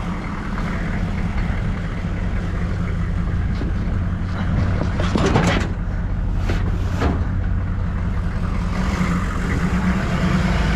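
A vehicle engine running steadily at a low hum, with a few short knocks or rattles about halfway through.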